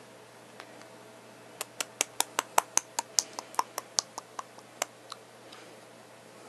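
A rapid, even run of sharp clicks, about five a second, starting a little over a second and a half in and stopping about three and a half seconds later.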